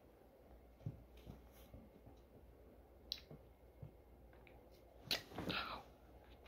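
Soft taps and rustling as a cat paws at and bites a wad of fluffy fake cobweb on a concrete floor, with a louder scuffle about five seconds in.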